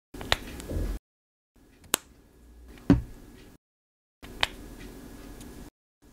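Small plastic food-coloring bottles being handled: sharp plastic clicks, about four in six seconds, each in a short clip cut off by dead silence, the third with a low thump.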